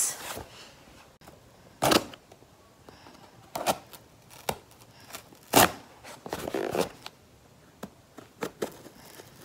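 Cardboard shipping box being handled and opened: a series of short scrapes and knocks with quiet gaps between, the loudest a little past halfway.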